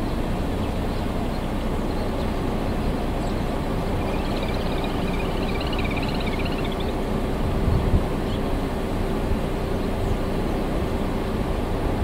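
Steady low outdoor rumble, like wind or distant traffic, with a bird's wavering high trill lasting about three seconds partway through.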